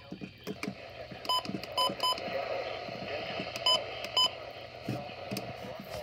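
Midland weather alert radio giving five short electronic beeps at uneven spacing, over a steady hiss and the rustle and clicks of handling.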